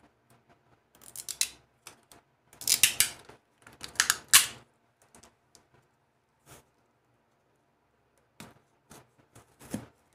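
Adhesive tape being pulled off a roll in three rasping, crackling strips, then scattered light clicks of handling.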